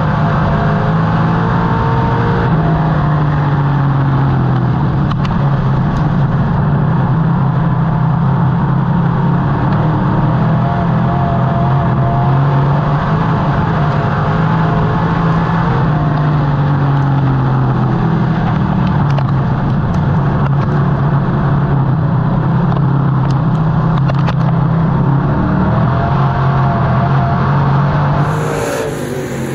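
Street stock race car engine running hard on track, its note rising and falling in pitch as it laps. The engine sound falls away near the end.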